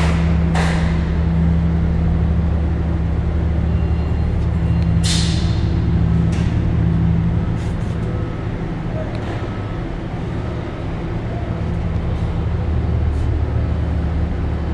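Steady low electrical and machinery hum around an energized chiller control panel, a constant drone of several low tones that eases slightly partway through. Two brief hissy rustles, one near the start and one about five seconds in.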